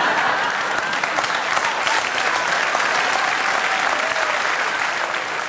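Studio audience applauding, beginning to die down near the end.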